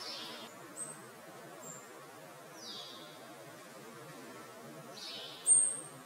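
Small songbirds calling: a short high note sliding downward repeats every two to three seconds, with faint brief high peeps about a second in. Near the end comes a sharp, very brief high-pitched note, the loudest sound.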